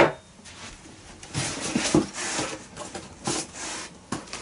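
Gimbal handlebar parts being picked up and handled on a tabletop: a string of soft scrapes and rubs with a few light knocks.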